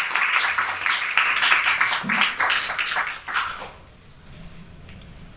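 Audience applauding, the clapping dying away after about three and a half seconds.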